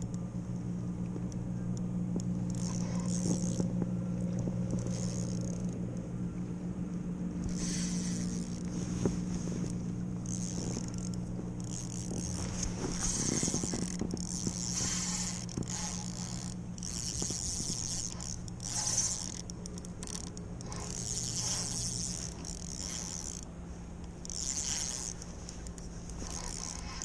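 Spinning fishing reel being wound in, in repeated short rasping stretches, over a steady low engine hum; the lower part of the hum drops out about three-quarters of the way through.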